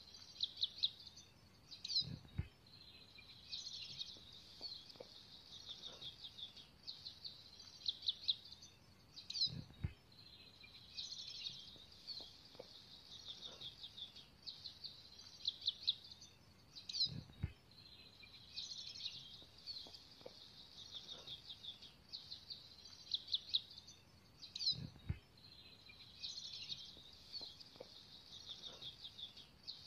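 Birds chirping in clusters of quick high trills, with a short low thump about every seven and a half seconds.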